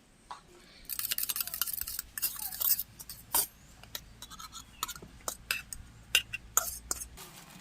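Spoon stirring and scraping in a cooking pot: a quick run of clattering strokes for about two seconds, then scattered single clinks.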